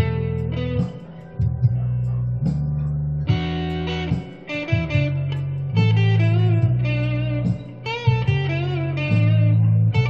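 Electric guitar playing an improvised blues lead in B, single notes and short phrases, with wavering vibrato notes near the end, over steady sustained low notes underneath.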